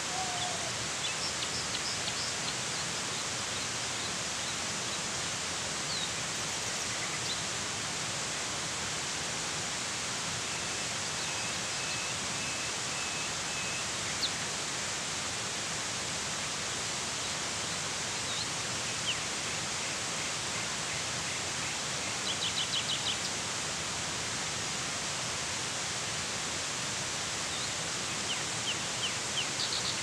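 Steady rush of a small waterfall pouring into a rock pool. Birds chirp over it in short quick runs, about a second in, about three-quarters of the way through, and near the end.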